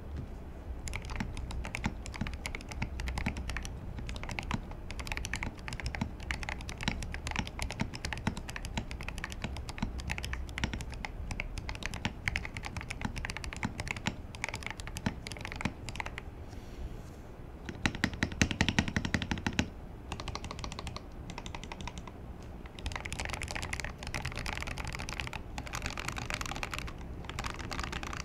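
Fast typing on a custom-built mechanical keyboard: a steady stream of key clacks. About two-thirds of the way through comes a short stretch of louder, deeper-sounding key strikes.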